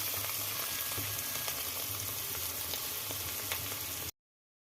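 Mushroom sabzi frying in a pan: a steady sizzle that cuts off abruptly about four seconds in.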